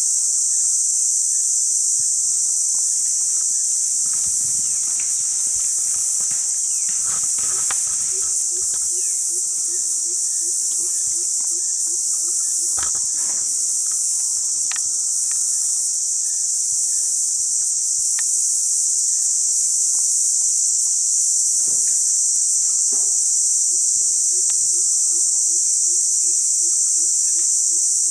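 Steady, high-pitched chorus of insects in the bush, the loudest sound throughout. A low call pulsing about four times a second runs for a few seconds about eight seconds in and again near the end, with a few soft knocks in between.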